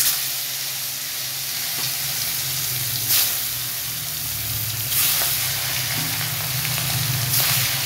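Pieces of rohu fish sizzling in smoking-hot oil in a kadai. The sizzle starts suddenly and flares louder three times as further pieces are laid in.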